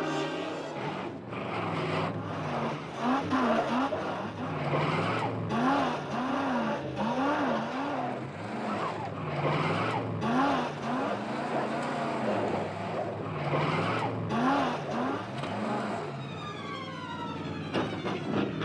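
A 1940s Ford convertible's engine revving up and down over and over as the car slides down a steep dirt track. Its tyres skid and spin in loose dirt and gravel.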